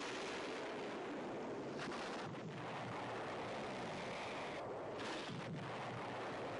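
Movie sound effects of a motorcycle exploding: a continuous, dense explosion noise with further sharp blasts about two seconds in and again about five seconds in.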